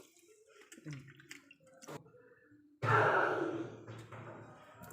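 Water from a kitchen tap starts suddenly about three seconds in, rushing strongly at first and then running more softly into the sink; a few faint clicks of handling come before it.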